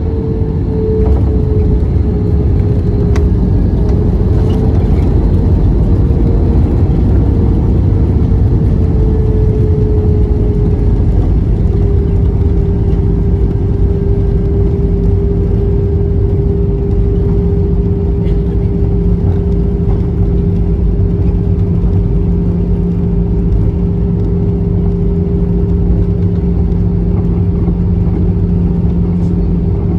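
Airbus A320-family airliner's twin jet engines at taxi power, heard from inside the cabin: a steady rumble with a humming tone that drops slightly in pitch about ten seconds in, then holds.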